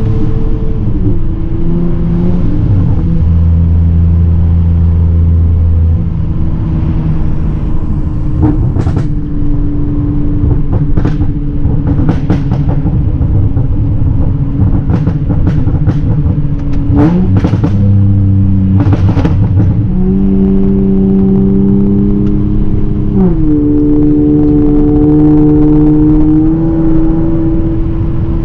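Honda Accord V6 running through catless downpipes, a loud exhaust note whose pitch steps up and down several times with throttle and gear changes. Through the middle come a run of sharp exhaust pops and crackles from a burble tune.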